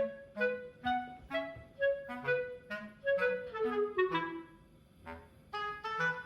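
Background music: a light melody of short, separate notes on a woodwind-like instrument, with a falling run of notes midway and a brief pause shortly before the end.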